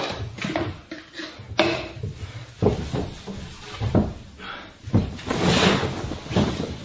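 Knocks and bumps as a wipes canister is handled on a wooden table, then rustling and swishing from a large cloth being shaken out for about a second near the end.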